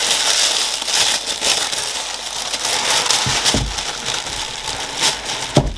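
White packing tissue paper rustling and crinkling as it is handled and unfolded in a new keyboard's box, with a dull knock midway and another near the end.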